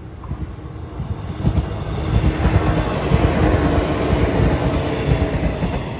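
A yellow JR West electric train passing close by on the Sanyo Main Line, its wheels knocking on the rails. The sound builds from about a second in, is loudest through the middle, and eases off near the end as the train goes by.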